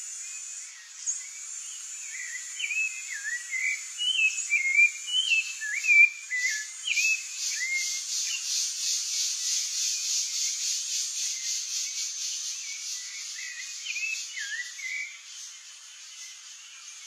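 Rufous-bellied thrush singing phrases of short whistled notes that slide up and down, in two bouts with a pause between. A high, evenly pulsing insect buzz sets in about six seconds in and goes on under the song.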